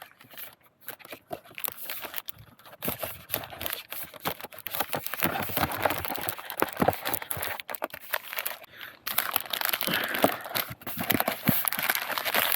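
Packaging of a self-heating meal pack crinkling and rustling as it is handled and folded and the meal pouch is pushed back into its heating bag. The crinkling is irregular and gets busier about halfway through.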